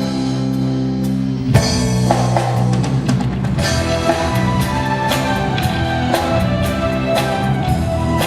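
Rock band playing a song: a drum kit keeping the beat under sustained guitar chords.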